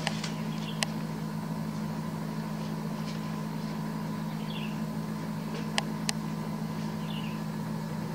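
Steady low mechanical hum, with three sharp clicks (one about a second in, two close together near six seconds) and a couple of faint high chirps.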